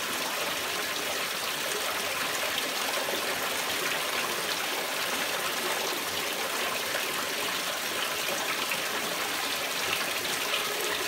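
Steady rush of pumped water flowing from the inlet pipe through a homemade koi-pond fleece filter.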